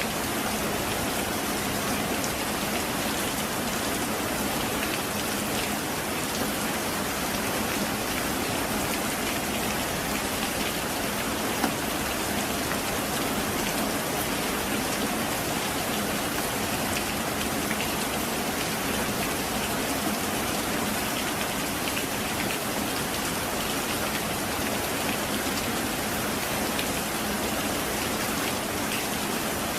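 Heavy rain falling steadily: an even, unbroken hiss of many drops on a surface, with no thunder and little deep rumble.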